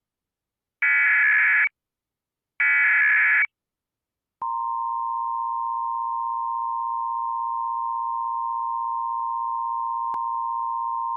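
Emergency Alert System test: the last two bursts of the SAME digital header, harsh buzzy data chirps just under a second each, then after a short pause the EAS attention signal starts about four seconds in, a steady tone near 1 kHz.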